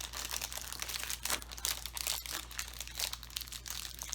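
Plastic wrapper of a soft baked snack bar crinkling in a dense run of crackles as it is handled and opened by hand.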